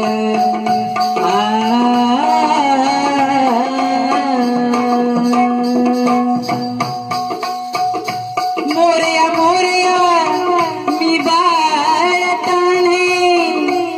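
Live Konkan balya-dance folk music: a wavering melody over a steady held drone, with a run of drum strokes about halfway through.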